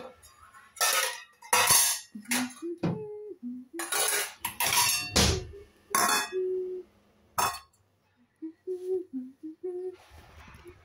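Kitchenware clattering: a series of sharp clanks and clatters of dishes and metal utensils, spaced irregularly, with a short lull near the end.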